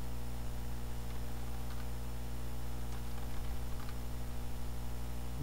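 Steady low electrical mains hum with its overtones, picked up by the recording. A few faint clicks come through about halfway.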